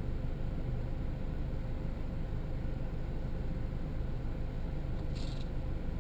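A car engine idling with a steady low hum. A brief soft hiss about five seconds in.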